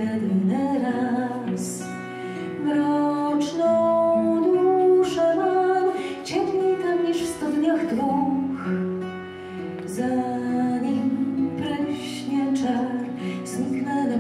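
Acoustic steel-string guitar played as accompaniment to a woman singing a slow song, heard live in the room.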